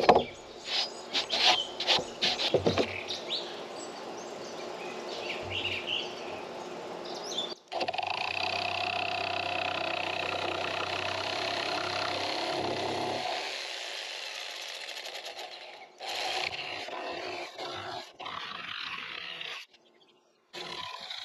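A few sharp knocks from handling the boards, then a corded jigsaw running steadily as it cuts through plywood, in stretches that start and stop abruptly. Birds chirp faintly in the background.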